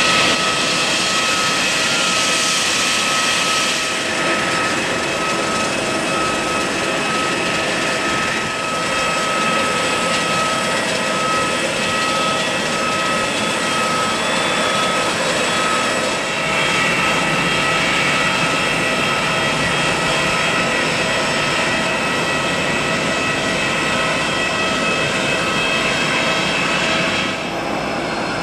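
Business-jet turbofan engines whining at low power while taxiing: a steady high whine over a rushing hiss. The sound changes about four seconds in and again just past half-way, as a different jet is heard.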